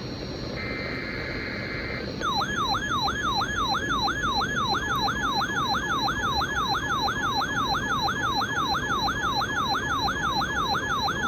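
End of the buzzing digital EAS/SAME header tones of a NOAA Weather Radio weekly test, then, about two seconds in, a weather radio receiver's alarm sets off a warbling siren tone that sweeps down and up about three times a second, signalling that the receiver has decoded the alert.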